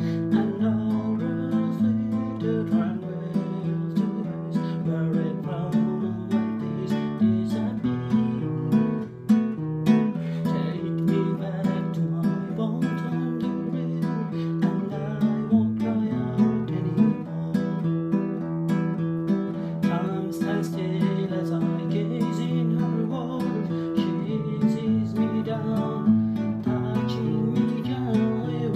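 A man singing to his own strummed acoustic guitar, a song with chords struck in a steady rhythm.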